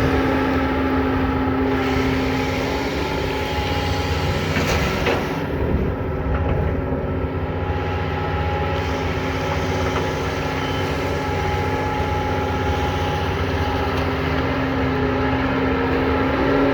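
Doosan long-arm excavator's diesel engine running steadily under work, with a brief knock about five seconds in.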